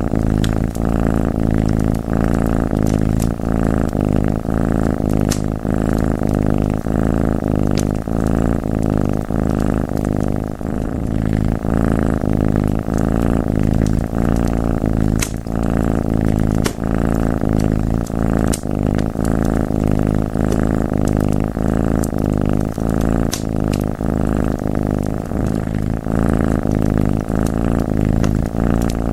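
Cat purring close up, a steady pulsing rumble, with the scattered sharp pops and crackles of a wood fire over it.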